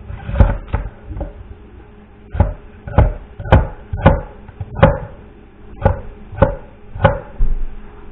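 Large cleaver-style knife chopping through a vegetable onto a thick wooden cutting board: about eleven sharp knocks at uneven intervals, roughly one every half second, with a short pause a little over a second in.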